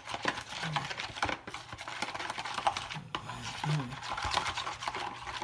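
Quick, irregular clicking and tapping of a utensil against a bowl as a liquid marinade is stirred and checked.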